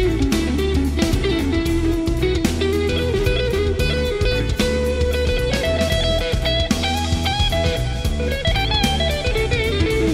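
Electric guitar solo from a live blues-rock performance: a lead line of long held notes, some bent in pitch, over bass and drums.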